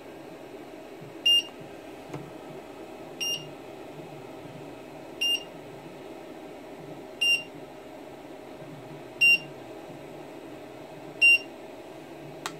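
Charsoon Antimatter 1000W 30A LiPo charger's buzzer sounding six short high-pitched beeps, about two seconds apart: its completion beep, signalling that the charge has finished. A steady low hum runs underneath.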